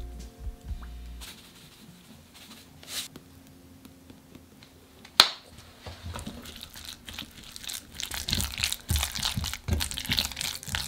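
Spatula stirring a sticky mixture of chopped broad beans, minced shrimp and potato starch in a glass bowl: wet squelching and scraping that grows louder over the last few seconds. A single sharp knock comes about five seconds in.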